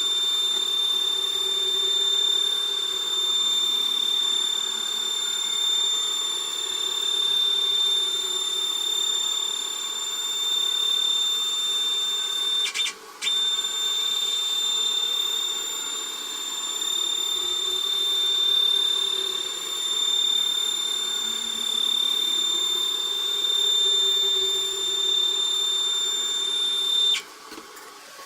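CNC machine running, played three times faster than real time: a steady high-pitched whine with a lower hum that wavers up and down as the machine moves. The whine drops out briefly about halfway through and cuts off shortly before the end.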